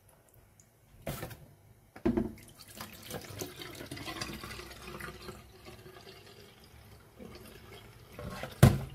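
Water splashing and sloshing in a plastic basin as sushi rice is rinsed by hand and the cloudy rinse water is poured off. It starts with a single splash about a second in and runs on steadily from about two seconds in. Near the end comes one sharp knock, the loudest sound.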